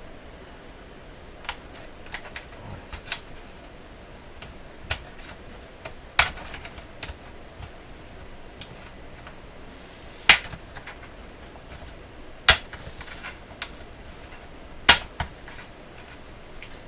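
Irregular sharp clicks and taps of small hand tools and parts against a transistor radio's case and metal fittings, with several louder knocks a few seconds apart.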